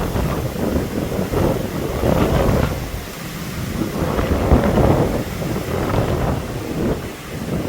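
Hurricane wind gusting hard and buffeting the microphone in a loud, low rumble that surges and eases every second or two.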